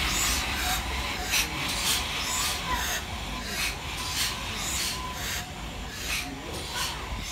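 GWR 2-8-0 tank steam locomotive No. 5239 'Goliath' pulling away, its exhaust chuffing in a regular beat of about two chuffs a second, fading slightly as it draws away.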